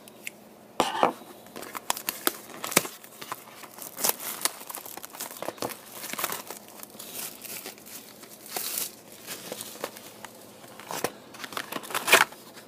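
Plastic shrink wrap being torn and crinkled off a sealed trading-card hobby box: irregular crackling and tearing, starting about a second in.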